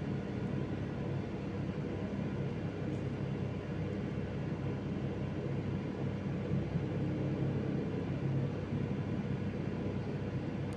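Steady low hum and rumble of background noise, with a few faint ticks.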